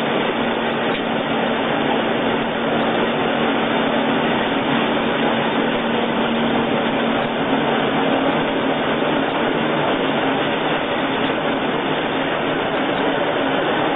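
Corn peeling and grinding mill running steadily: a loud, even machine noise with a constant low hum underneath.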